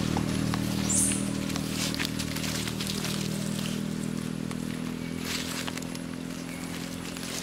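A motor vehicle's engine running steadily and slowly fading, with faint rustling clicks from the leaf litter and one brief high chirp about a second in.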